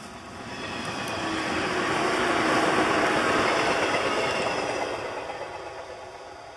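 415 series electric multiple unit passing by on the rails: the running noise swells, peaks about two to four seconds in, then fades as the train draws away.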